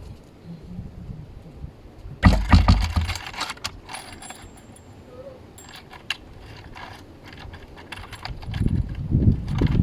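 Metal clicks and rattles of small hardware being handled, with a loud clatter and knock about two seconds in and a few lighter clicks later, then low bumping near the end.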